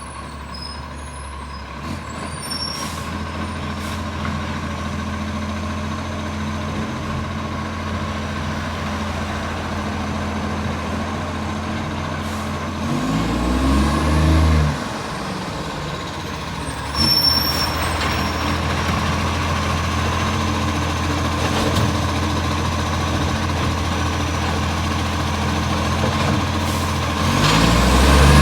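Garbage truck diesel engine running, which has an exhaust leak. The revs rise for a couple of seconds about halfway through and again near the end. A sudden louder hiss comes in about seventeen seconds in.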